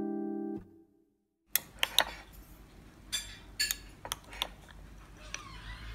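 A held musical note fades out at the start; after a short gap, a plastic spoon stirring in a ceramic bowl of coconut milk and diced pieces makes a run of light clinks and taps against the bowl.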